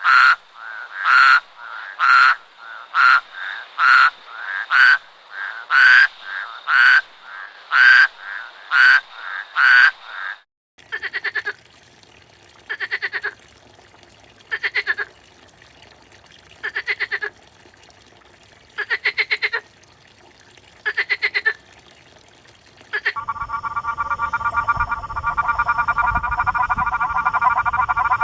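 Frogs calling, in three different sequences. First comes a fast series of short, regular croaks a little under a second apart. Then, after a cut, a slower run of rattling pulsed calls about two seconds apart. Near the end there is a continuous trilling frog chorus.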